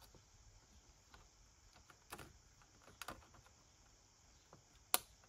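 Soft scattered clicks and taps of fingers handling a plastic-covered game card over a ring binder: a few small clicks about two and three seconds in, and one sharper click near the end.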